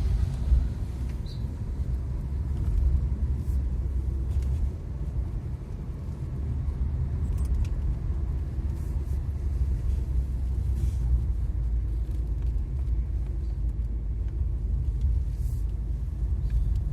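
Tata Nexon driving on a mountain road: a steady low rumble of engine and road noise heard from inside the cabin, with a few faint clicks.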